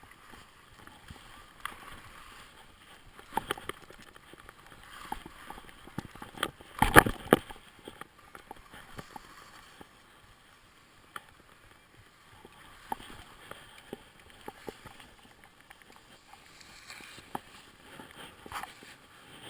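Skis sliding over packed snow during a descent, with scattered light clicks and one short, much louder burst about seven seconds in.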